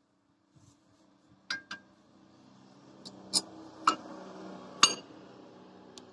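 Metal clinks of brake caliper parts and tools being handled, five sharp knocks spread over a few seconds over a faint low hum.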